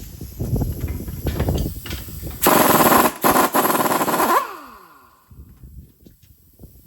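Air tool hammering in a loud, rapid rattle for about two seconds, winding down in pitch as it stops, after a few scattered metal knocks. It is being used to drive a stuck hub bearing assembly off the axle.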